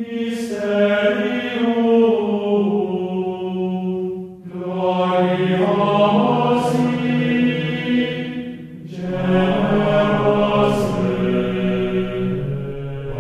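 Chanted singing: long held notes on a low pitch in three phrases of about four seconds each, with short breaks between them.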